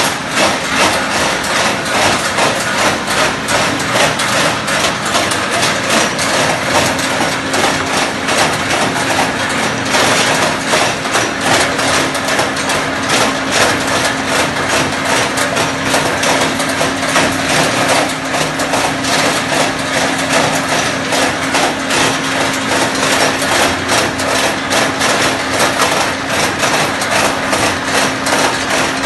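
Areca nut peeling machine running: a steady motor hum under a dense, continuous rattle and clatter of nuts being knocked about inside the machine.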